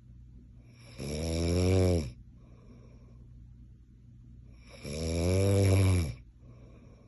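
A man snoring loudly: two long snores about four seconds apart, each rising then falling in pitch, with a low steady hum between them.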